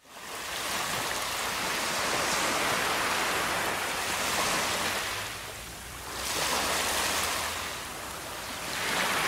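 Shallow sea surf washing in over a sandy beach: a steady rush of foaming water that swells and eases, dipping twice in the second half.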